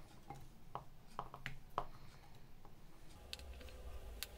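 Metal kitchen tongs clicking against a glass bowl and glass jars as sliced radish is laid into the jars: light, irregular clicks, closer together in the first two seconds and again near the end.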